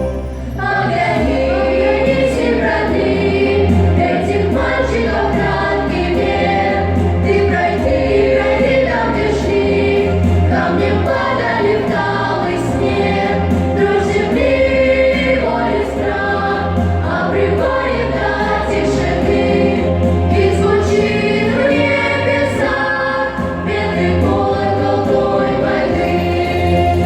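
Choir singing a song with instrumental backing and a bass line underneath.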